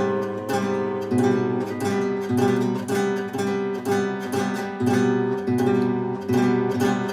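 Acoustic guitar strummed in a steady rhythm, an instrumental passage between sung lines.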